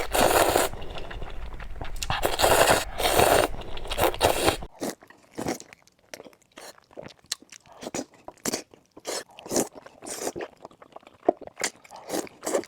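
Close-miked eating of crunchy food: dense, loud crunching bites for the first four or five seconds, then an abrupt change to quieter, separate crisp chewing crunches.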